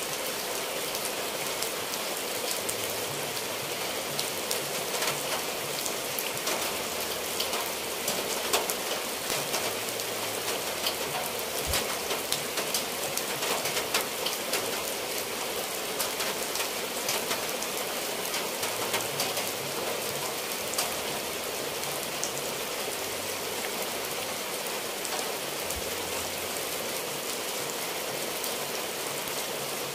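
Steady rain falling on tile roofs and dripping from the eaves: many sharp drop ticks over an even hiss.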